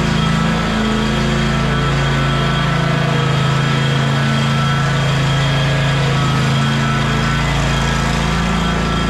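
Wright 36 inch stander mower's engine running steadily.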